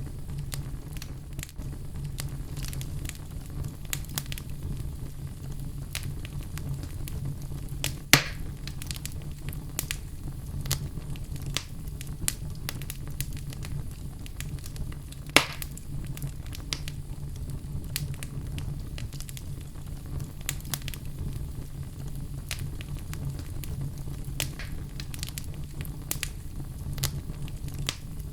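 Fire in a fireplace crackling steadily, a dense scatter of small pops and snaps over a steady low rumble, with two much louder pops about eight and fifteen seconds in.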